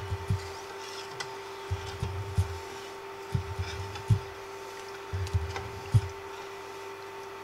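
A spoon stirring water in a stainless steel pot on an induction cooktop, knocking and scraping against the pot in little clusters every second or two. Under it runs the steady hum of the induction cooker working.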